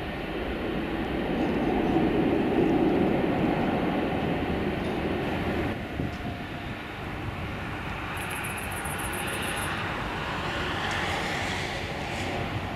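Four Rolls-Royce Trent 500 turbofans of an Airbus A340-600 running at taxi power as the airliner turns onto the runway: a steady jet rumble and hiss that swells about two seconds in, with a higher whine growing near the end.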